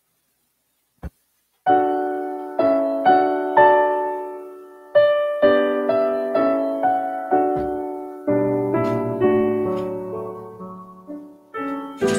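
A single sharp click about a second in, then slow piano music starts: chords and single notes, each struck and left to ring away.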